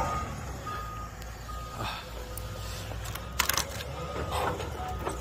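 Excavator's diesel engine running steadily under a repeating warning-alarm beep, about one short beep a second. There is a brief clatter about three and a half seconds in.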